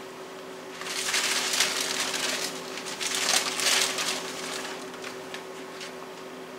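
Crinkly rustling in uneven surges for about three and a half seconds, starting about a second in, then a few light ticks, as handfuls of shredded cheese are grabbed and scattered over pasta in a disposable aluminum foil pan. A faint steady hum runs underneath.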